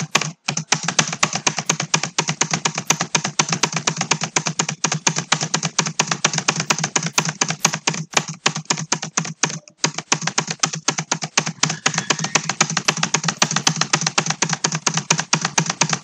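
Fast, continuous typing on a computer keyboard: the same few letter keys hit over and over, many strokes a second, with a few short pauses.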